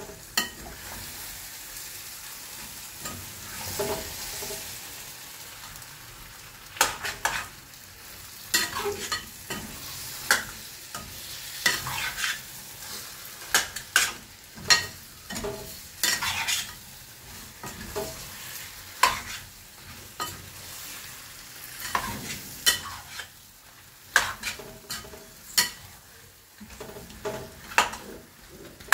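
Chicken pieces with potato in spice masala sizzling in a stainless steel pan while a metal spoon stirs them, the spoon scraping and knocking against the pan at irregular moments.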